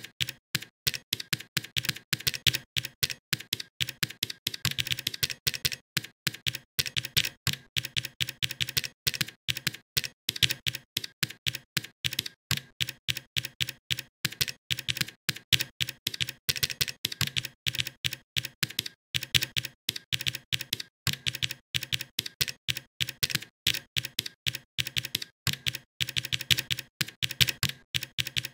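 Computer keyboard typing: a quick, steady stream of keystrokes, several a second, with a couple of brief pauses.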